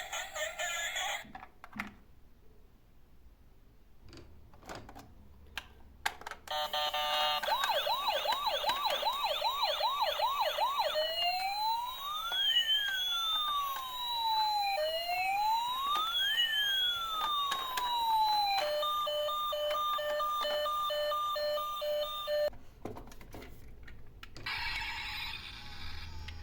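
Electronic emergency-vehicle siren: a fast yelp for about four seconds, then two slow rising-and-falling wails, then a steady tone chopped into short repeated beeps that stops abruptly.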